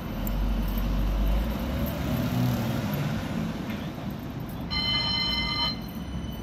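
Road traffic beside street-running tram tracks, with a low rumble from a heavy lorry passing early on while a CAF Urbos tram approaches. About five seconds in, a steady high tone rings for about a second.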